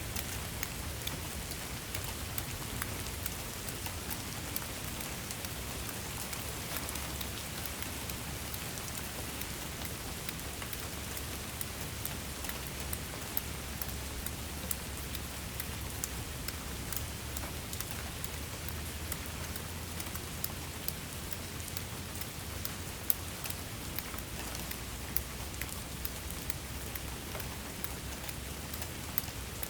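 Steady rain falling, a constant hiss dotted with many sharp ticks of single drops, over a low steady rumble.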